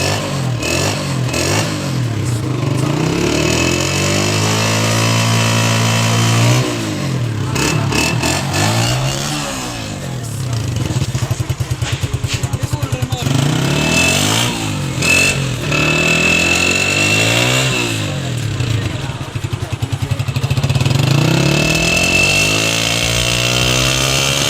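Honda CG125's air-cooled single-cylinder engine being revved repeatedly while standing. The pitch climbs and holds high for a couple of seconds, then drops back to idle, followed by several shorter blips of the throttle.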